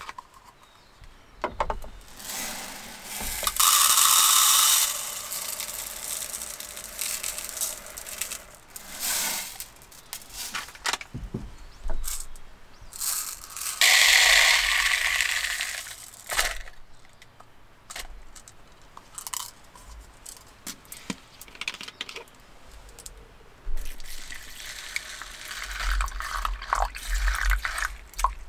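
Tabletop handling: a plastic bag rustling and a dry powder poured in two loud hissing spells, with small taps and clicks of containers between. Near the end, water poured from a plastic bottle into a paper filter in a mug.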